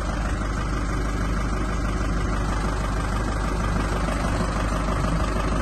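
1997 Ford Transit van's engine idling steadily.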